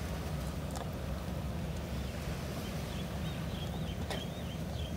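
Steady low rumble of wind on the microphone at the shoreline; in the second half a bird chirps several times in short, high, wavering notes.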